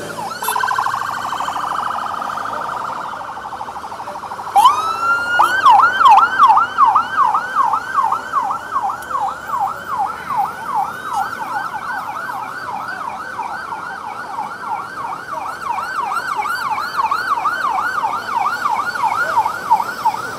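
Police escort siren. It starts as a steady, fast-warbling tone, then about four and a half seconds in switches to a rapid yelp that rises and falls about two and a half times a second. The yelp is loudest just after the switch.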